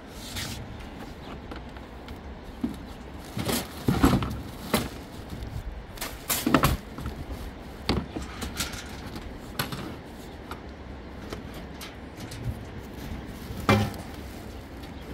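Plastic buckets, jerrycans and containers knocking and clunking as they are shifted and packed by hand, with cloth and bedding rustling; the knocks come irregularly, about a dozen of them.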